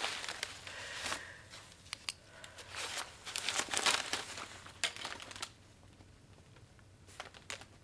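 Rustling and crinkling handling noise in short, irregular bursts, from a folder's paper pages and a bouquet's cellophane wrapping being handled during signing, with a quieter pause about two thirds of the way through.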